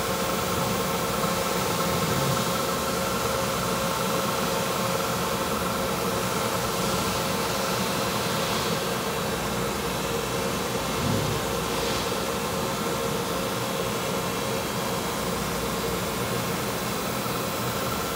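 Giddings & Lewis G60T CNC horizontal boring mill running, a steady mechanical hum with several constant tones over a hiss. There is a brief knock a little past halfway.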